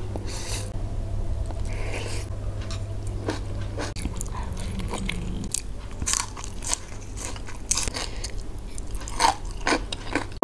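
Close-miked eating: crisp crunching bites and chewing of fried instant noodles and raw green onion stalks, with many sharp clicks and crackles. A steady low hum runs underneath.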